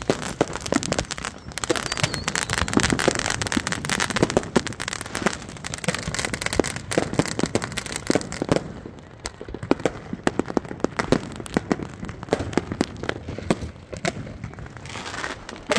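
Many consumer fireworks and firecrackers going off at once: a dense, irregular run of sharp pops, bangs and crackling, thinning briefly about nine seconds in.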